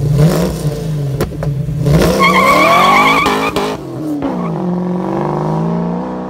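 A 1968 Mustang's 363 cubic-inch stroked small-block Ford V8 revs, then launches hard. The tires squeal as the engine climbs through first gear. The revs drop at a shift near four seconds, and it pulls up again in the next gear as the car draws away.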